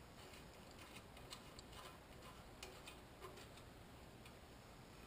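Faint, irregular small metal clicks and ticks as a screw clamp is tightened by hand, clamping a level down on a metal table-saw top.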